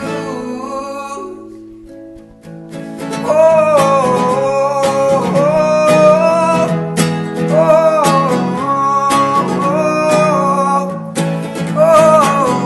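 Background music: a song with acoustic guitar and a singing voice. It thins out briefly about two seconds in, then comes back fuller and louder.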